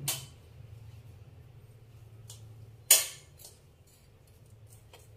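A single sharp tap about three seconds in that dies away within half a second, with a few faint clicks and a low steady hum underneath.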